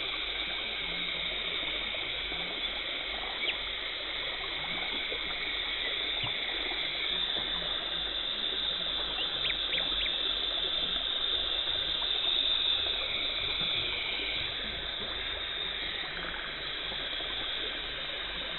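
Dental cleaning equipment running during tartar removal: a steady hiss of water spray and suction, with a faint high whine that shifts in pitch a couple of times.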